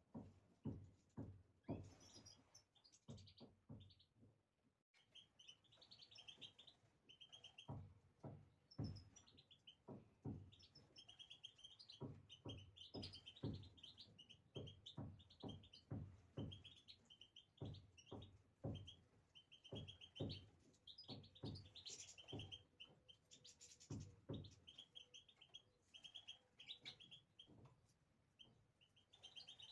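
European goldfinches chirping quietly, short high calls repeated again and again, over a string of soft low thumps that come a few times a second.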